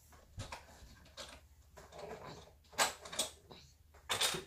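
Cardboard toy boxes handled against a shelf: several light knocks and scrapes, the loudest near the end.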